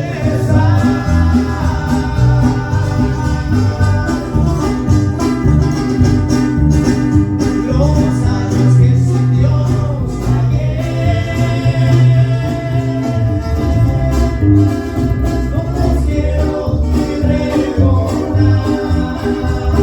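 A small Christian band playing a song live on guitar, requinto, bajo quinto and bass guitar, with singing over the strings.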